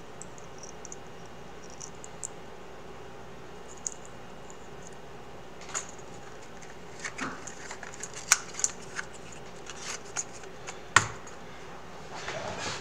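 Handling noise: quiet room tone at first, then scattered light clicks and scratches from about halfway in, with two sharper clicks in the second half and a rustle building near the end.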